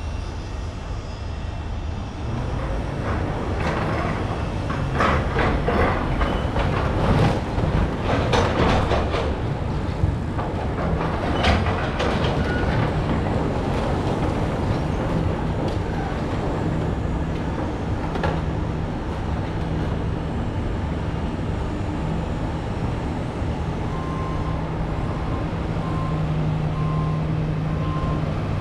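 Heavy construction machinery working: a diesel engine runs steadily under a stretch of metallic clanking and knocking, then a reverse alarm beeps about once a second near the end.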